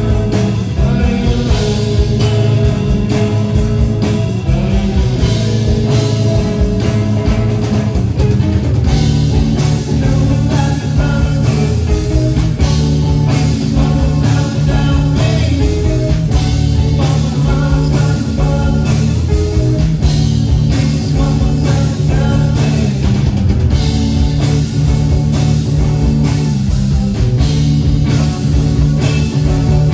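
Live rock band playing loudly: distorted electric guitars, bass guitar and a drum kit keeping a steady beat.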